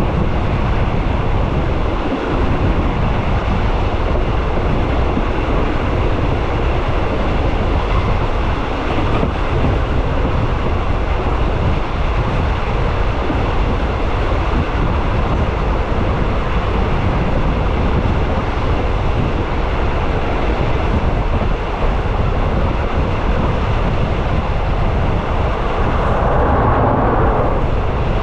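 Steady rumble and rushing noise of a moving train, with a slight swell near the end.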